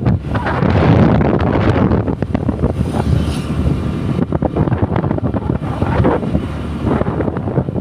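Steady rumble of a moving vehicle with wind buffeting the microphone.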